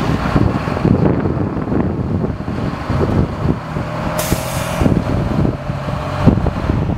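Freightliner M2 106 flatbed truck's diesel engine running as it drives off, with a short hiss about four seconds in.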